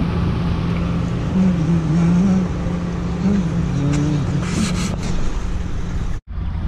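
Road traffic: cars driving past with a steady low rumble and hum, a brief hiss about four and a half seconds in, and the sound cutting out for an instant near the end.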